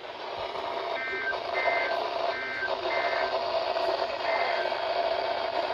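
Weather radio static hiss with six short bursts of warbling two-tone data chirps, a third of a second each, most likely the EAS/SAME end-of-message codes closing the warning broadcast.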